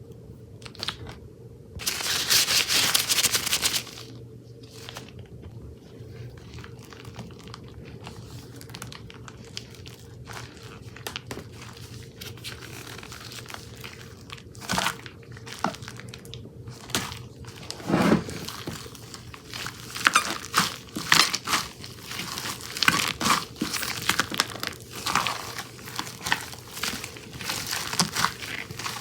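Purple slime being squished and stretched by hand, making crackling, sticky popping sounds. A louder patch of crackle comes about two seconds in and lasts a couple of seconds. Dense clicks and pops fill the second half.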